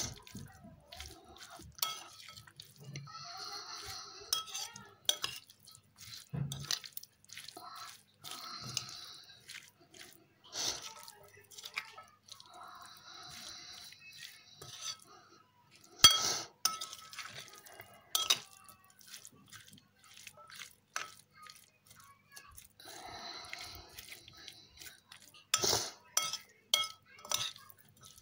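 A utensil clinking and scraping in a bowl as canned tuna is mashed and mixed into chopped vegetables. Irregular sharp taps run throughout, with a loud knock about halfway through. Several short wet scraping stretches come between them.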